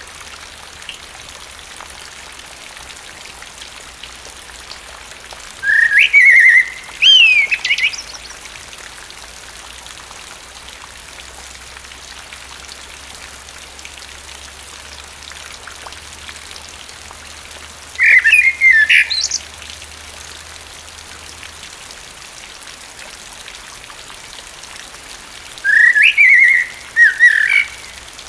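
Common blackbird singing three short song phrases, several seconds apart, over a steady hiss of falling rain.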